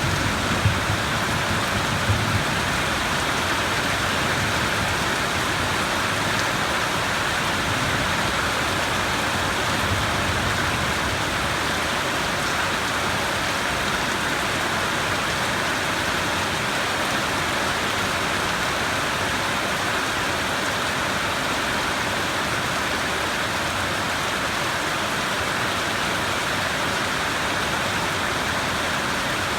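Steady, even rainfall. A low rumble of thunder dies away in the first few seconds.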